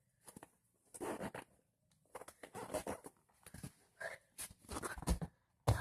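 Short, scattered bursts of rustling as a packed bag and clothing are handled, with a thump near the end.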